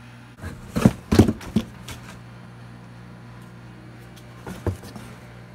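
A few knocks and thumps about a second in, and two more near the end, over a steady low hum.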